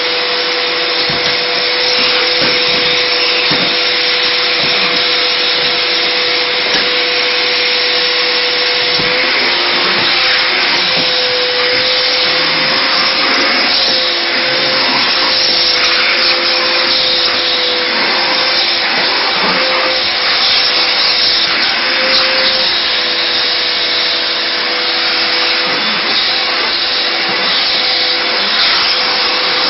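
Vacuum cleaner running steadily: a constant motor whine with a slight wavering in pitch, over which come frequent small knocks and bumps.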